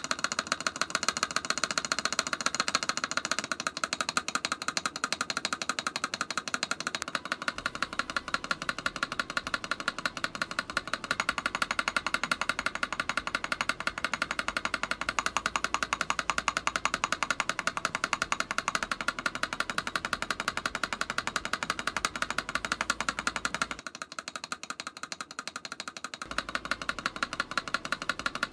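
Fast, continuous typing on an MK870 TKL mechanical keyboard with AJAZZ Banana tactile switches, a dense run of keystrokes. The tone of the keystrokes changes abruptly at several cuts as the switches go from stock to lubed and fitted with different switch films (silicone, EVA foam).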